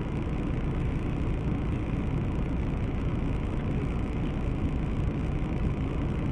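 A car driving, its engine and tyre noise a steady low drone with no impact or crash.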